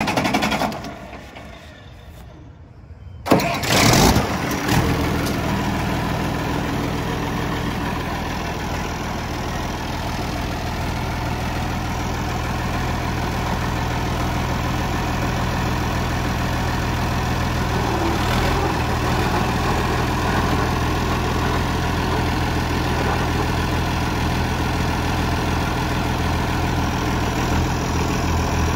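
International Harvester 1486 tractor's turbocharged six-cylinder diesel engine starting about three seconds in, then idling steadily.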